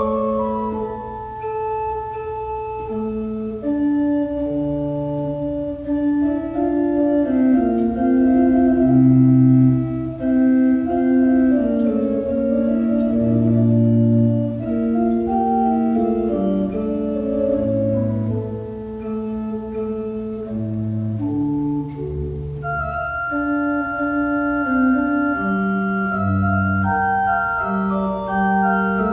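Slow organ music: sustained chords over held bass notes that change every couple of seconds.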